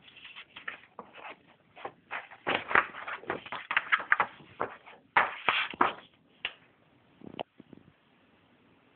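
Paper rustling as the pages of a printed booklet are handled and turned: a run of irregular rustles that thickens in the middle, then a couple of sharp single taps before it fades away.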